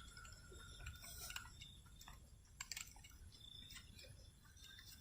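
Faint, near-quiet ambience: a low rumble with scattered soft clicks and ticks, and a thin steady high tone that stops about a second and a half in.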